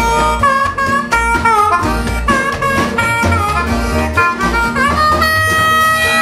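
Harmonica solo played into a cupped bullet microphone, short bent notes then one long held note near the end, over an upright double bass and the band's rhythm accompaniment.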